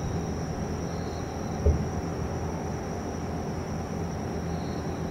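Distant aerial firework shell bursting: one dull, low boom about a second and a half in, over a steady low rumble of background traffic noise and a steady high-pitched tone.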